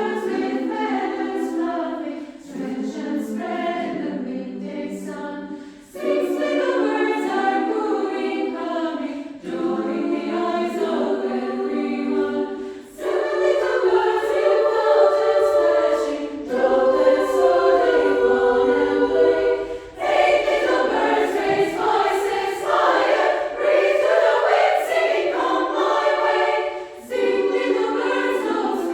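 Female choir singing in three upper-voice parts (SSA), in phrases of a few seconds each with short breaks between them.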